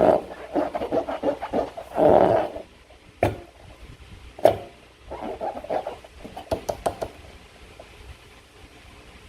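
Slime being worked by hand: a run of short, irregular wet squelches and clicks, with a longer squelch about two seconds in, thinning out near the end.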